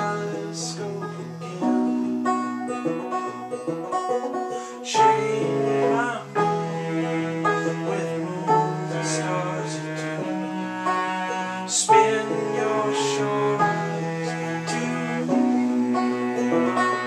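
Cello and electric keyboard playing an instrumental tune together: the cello holds long low notes while the keyboard plays sharply struck notes over them.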